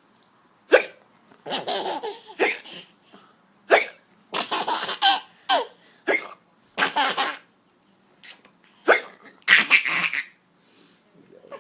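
A baby hiccuping: about five short, sharp hiccups spaced one to three seconds apart, with bursts of breathy laughter between them.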